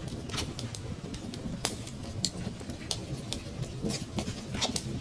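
Wood fire crackling in a fireplace: irregular sharp snaps and pops over a low, steady rumble of burning, with the loudest snap about a second and a half in.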